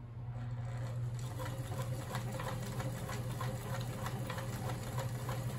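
Sears Kenmore 158.14300 sewing machine running at a steady slow speed, sewing a zigzag stitch. Its motor hums and the needle ticks regularly, about three to four times a second.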